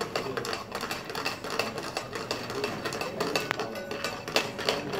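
Rapid, irregular clicking and scraping of metal utensils against a steel pan and tray.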